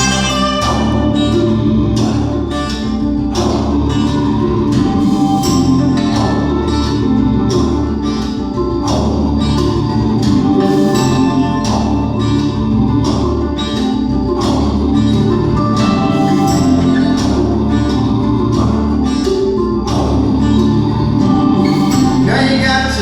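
Instrumental break of a song: sustained keyboard chords and a bass line over a steady beat, with no singing.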